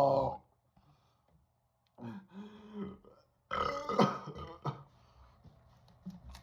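A man burping from the gas of chugged Diet Coke. A long, loud burp tails off in the first half second, and after a pause two shorter burps follow, about two and three and a half seconds in.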